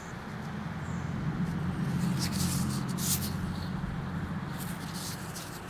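A low, steady motor hum that swells to a peak about two seconds in and then fades, with a few short rustling noises over it.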